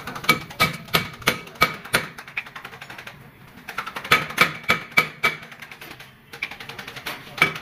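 Steel hammer striking a truck's brake drum and wheel hub, about three sharp ringing blows a second. The blows come in two runs of five or six, with a pause between them and a single blow near the end.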